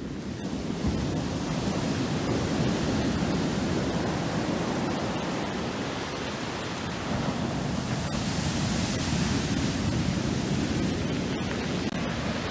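Black Sea surf: foamy waves breaking and washing on the shore in a steady rush, swelling louder twice, about two and about eight seconds in.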